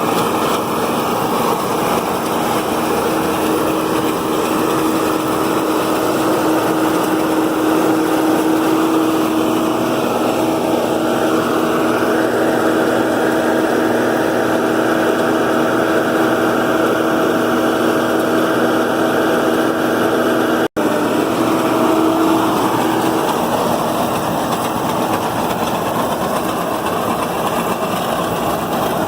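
John Deere 4440 tractor's six-cylinder diesel running steadily under load while a New Holland Roll-Belt 450 round baler picks up and rolls hay, a dense, loud machinery noise with a steady hum in it. The sound cuts out for an instant about two-thirds of the way through.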